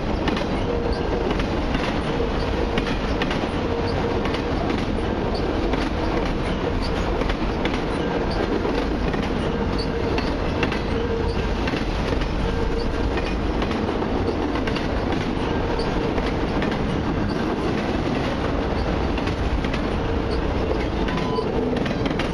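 Long freight train of autorack cars rolling past close by: a steady rumble and clatter of wheels over the rail joints, with a steady wheel squeal that comes and goes.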